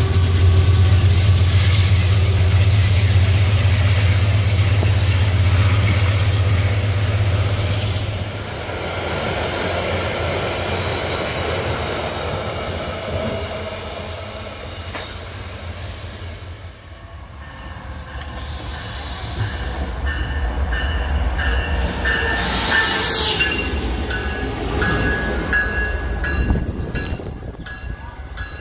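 Vale GE Dash 9 diesel-electric locomotive passing at speed with a loaded iron-ore train: a loud, steady engine drone for the first several seconds, then the ore wagons rumbling and clattering by. The rumble fades away about halfway through. The sound builds again as a second diesel train approaches.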